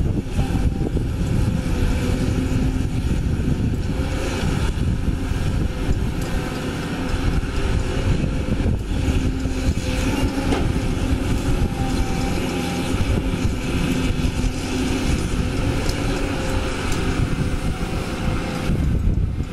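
Caterpillar 320D hydraulic excavator's diesel engine running steadily under load as the machine swings and digs, with a faint hydraulic whine coming and going.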